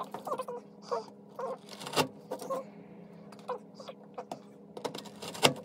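Knife cutting a chocolate slab into pieces on a cutting board: two sharp knocks of the blade on the board, about two seconds in and near the end, with small clicks and short squeaky sounds in between.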